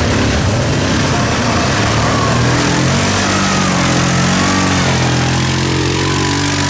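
Quad bike (ATV) engine revving up and down as it churns through deep mud, its pitch rising and falling.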